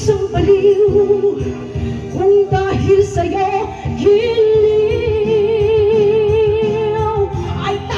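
A woman singing into a handheld microphone over backing music, holding one long note with wide vibrato from about four seconds in until near the end.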